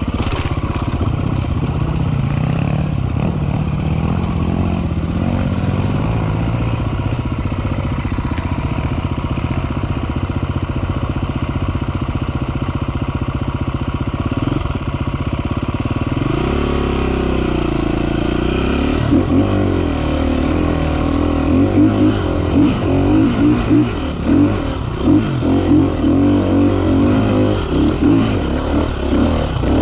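Enduro dirt bike engine running at a steady throttle, then from about halfway the revs swing up and down in short bursts of throttle.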